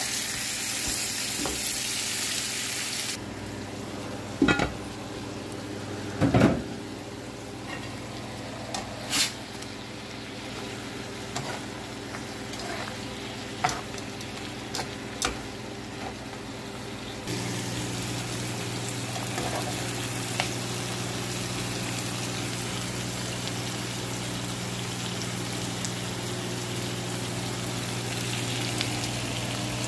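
Flanken-cut beef short ribs and sliced onions sizzling in a frying pan, with metal tongs clicking against the pan now and then as the pieces are turned. From a little past halfway a steady low hum runs under the sizzle.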